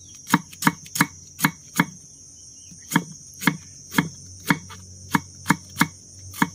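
Kitchen knife slicing banana-stem core into thin pieces on a wooden chopping board: a sharp chop every third to half second, about a dozen in all, with a brief pause about two seconds in. Insects keep up a steady high-pitched buzz underneath.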